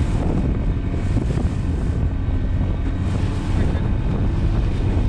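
Outboard motor of an open fishing boat running steadily at speed, with water rushing past the hull and wind buffeting the microphone.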